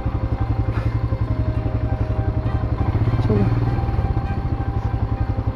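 Royal Enfield Himalayan's single-cylinder engine running under way at a steady, even pulse, heard from on the bike, with a slight rise a little past three seconds in.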